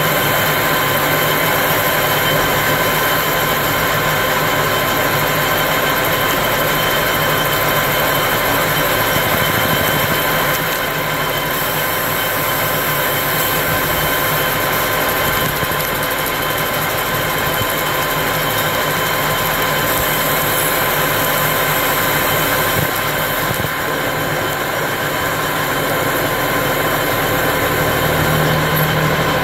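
Metal lathe running steadily while a carbide tool takes a cut along a white PTFE (Teflon) rod, giving a continuous machine hum with constant whining tones. A deeper hum comes in near the end.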